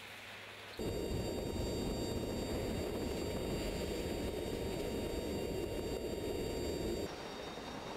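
Steady rush of wind and engine drone inside a C-130 Hercules four-engine turboprop cargo hold with the rear ramp open in flight, with several steady high tones over it. It starts abruptly about a second in and drops to a quieter drone near the end.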